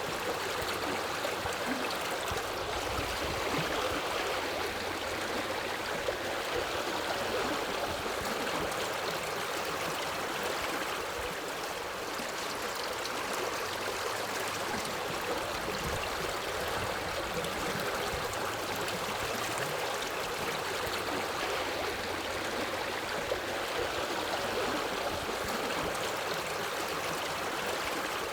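Forest river flowing steadily, an even, unbroken wash of running water.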